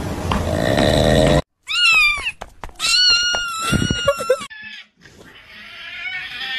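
Edited animal sound effects. A rough, noisy grunting sound cuts off sharply. After a short gap come two high-pitched animal cries, the first falling in pitch and the second held steady, with a few clicks between them. A quieter sound swells up near the end.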